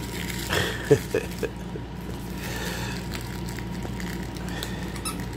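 A cat biting and kicking a plush toy, with a few short, sharp sounds about a second in, the loudest a single sharp snap. A steady low hum sits underneath throughout.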